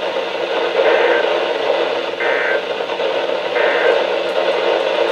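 NOAA Weather Radio SAME end-of-message tones: three short, equal bursts of two-tone digital data about a second and a half apart, played through the Midland ER310's speaker over steady radio static. They mark the close of the required weekly test.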